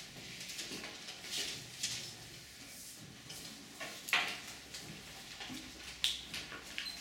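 Scattered rustling and handling noises of paper cards being sorted in someone's hands, with a couple of sharper knocks about four and six seconds in.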